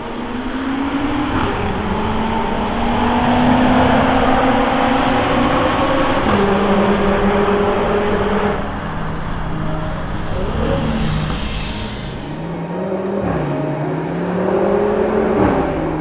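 500 PS Abt Audi TT RS-R's turbocharged five-cylinder engine accelerating hard, its pitch climbing and then stepping down at each of several upshifts.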